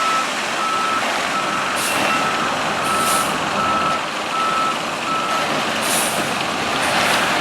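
Concrete mixer truck's reversing alarm beeping at a steady pace, a bit more than one beep a second, over the noise of the running truck; the beeping stops about five and a half seconds in.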